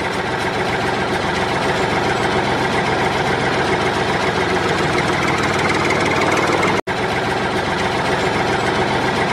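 A tractor engine running steadily at idle, cut off for an instant about two-thirds of the way through.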